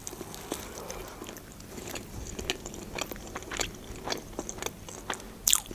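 A person biting into and chewing a soft calzone filled with cheese, chicken and sauce, recorded close up: soft, wet chewing with small mouth clicks, and a louder click near the end.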